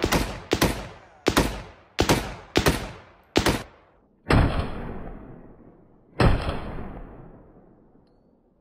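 Gunshots fired one after another: about six quick shots roughly two-thirds of a second apart, then two more a couple of seconds apart, each echoing away slowly.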